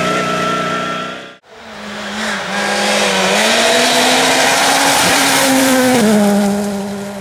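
Ford Fiesta rally car at speed on a muddy gravel stage, coming toward the listener and passing close by. Its engine note rises as it accelerates, then drops as it goes past about six seconds in, with a loud hiss of tyres and flung gravel. Before it, a different rally car's engine cuts off about a second in.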